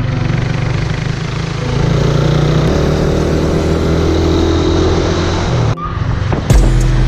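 Motorcycle engine running steadily while riding, with a broad rushing noise over it; the sound drops out briefly near the end and comes back changed.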